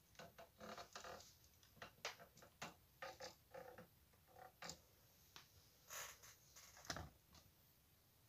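Faint handling noise: irregular soft clicks and scrapes, a dozen or so scattered through, the loudest about seven seconds in.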